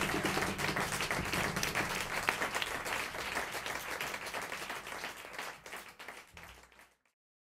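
Audience applauding in a theatre after a live band, the clapping thinning out and fading away before the sound cuts to silence about seven seconds in.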